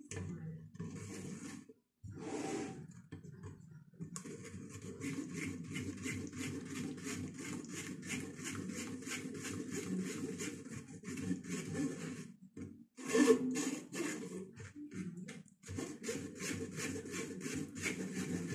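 A spoon scraping and pressing cooked tomato pulp through a strainer in quick, repeated strokes, pushing the sauce through the mesh. The strokes stop briefly past the middle, then there is one louder knock against the strainer before they resume.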